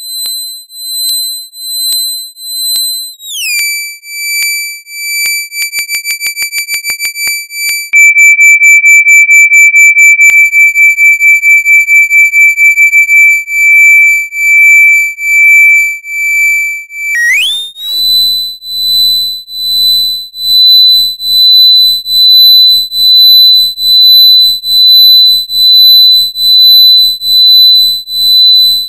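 Computer-generated sine tone under amplitude modulation, pulsing louder and softer about once a second at a high pitch. About three seconds in, the pitch glides down and the pulsing speeds up to several a second. After about seventeen seconds it glides back up to the first pitch and pulses slowly again.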